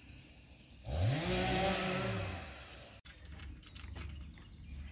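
A motor engine revs up quickly, holds, then drops in pitch. It starts suddenly about a second in and stops around three seconds in.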